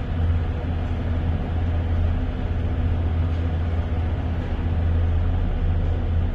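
Large helicopter running on the helideck with its rotors turning: a steady low drone with engine hiss over it.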